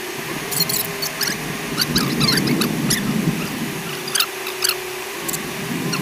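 Off-road vehicle driving over desert sand, played back sped up: a steady engine hum under many short, high squeaks that fall quickly in pitch.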